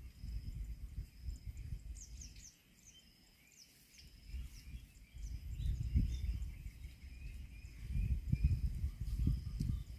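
Outdoor rural ambience: a low, uneven rumble that comes and goes, with small birds chirping in short, quick calls for a few seconds in the first half.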